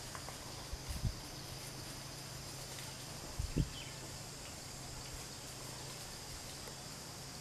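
Steady outdoor background with a faint high, even hiss, broken by two brief low thumps, one about a second in and one about three and a half seconds in.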